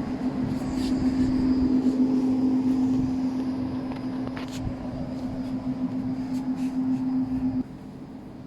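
A steady engine drone at one pitch, cutting off abruptly about seven and a half seconds in.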